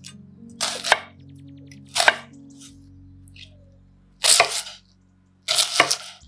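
Kitchen knife slicing through a halved onion on a wooden cutting board: four cuts about one to two seconds apart, over soft background music.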